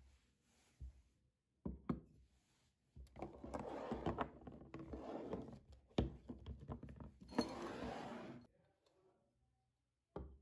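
Household objects being handled: sharp clinks and knocks, then a few seconds of dense clattering and rustling with clicks through it that stops abruptly.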